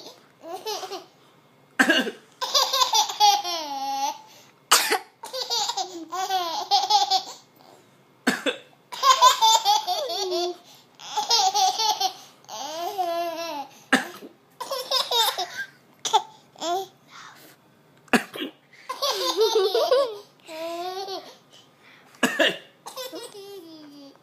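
A baby laughing in repeated bouts of high, wavering giggles. Each bout is set off by a person's short, sharp cough, and this happens about six times.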